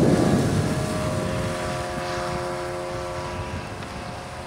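A rush of wind on the microphone at the start, then a steady droning hum of several tones that slowly fades.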